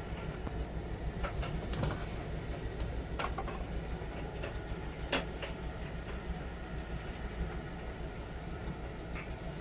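Miele Novotronic W921 washing machine running with a steady low rumble and scattered short clicks, the loudest about halfway through.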